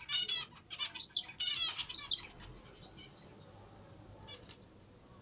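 Caged zebra finch singing: a run of quick, buzzy, repeated notes for about the first two seconds, then only a few faint chirps.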